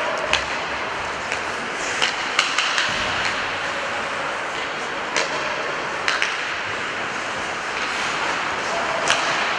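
Ice hockey play in an arena: a steady scrape of skates on the ice, with a string of sharp clacks as sticks strike the puck and each other. Players' voices call out now and then.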